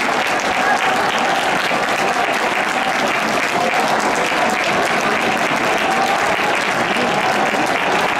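Large stadium crowd applauding steadily, with many voices from the crowd blended in underneath.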